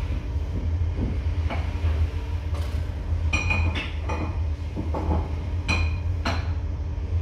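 A twin-bag dust extractor running with a steady low hum, while metal tooling clinks and rings on a spindle moulder during setup, about six sharp clinks in the second half.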